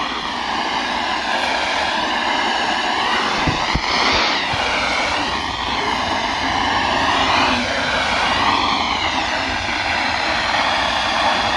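Weather radio receiver hiss and static, with a slow, wavering whoosh sweeping up and down through it. The NOAA Weather Radio announcer's voice is lost under the noise, the sign of poor reception.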